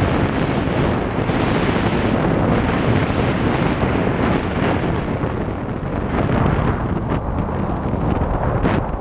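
Heavy wind rushing over the microphone of a camera on a moving snowmobile, with the snowmobile's engine running underneath.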